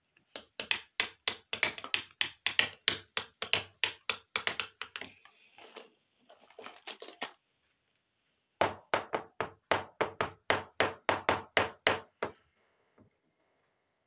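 Small hard plastic toy pieces being tapped, in two quick, even runs of about four or five taps a second, with a softer scraping between the runs.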